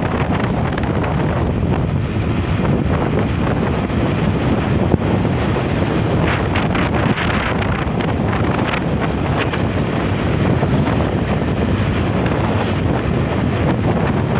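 Wind rushing over the microphone of a camera on a moving motorcycle: a steady, loud rush with no pauses.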